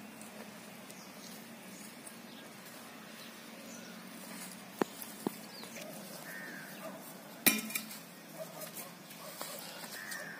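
Outdoor ambience with faint scattered bird chirps and a few sharp clicks, the loudest a short cluster of clicks about seven and a half seconds in.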